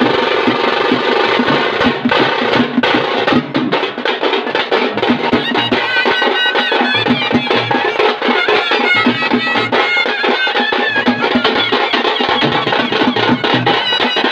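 Traditional street drum band: several shoulder-slung two-headed drums beaten together in a fast, dense rhythm. A high melody line joins from about six seconds in.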